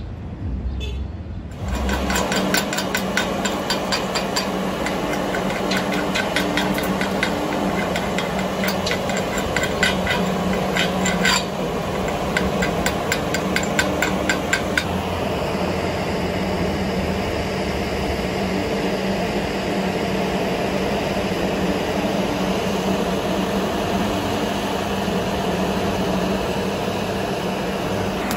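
Fast, rhythmic scraping strokes of hand cleaning on a freshly welded steel plate, working the slag off the weld bead, several strokes a second over a steady low hum. The strokes stop about halfway through, leaving the hum and a steady hiss.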